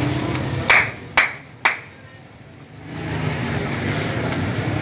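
Steady background noise of a busy street food stall, broken less than a second in by three sharp knocks about half a second apart. The background then drops away for about two seconds before returning.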